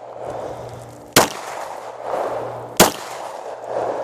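Glock 19 9mm pistol firing two shots about a second and a half apart, each followed by a rolling echo. The pistol has been cold-soaked overnight at about 9 °F and is cycling normally.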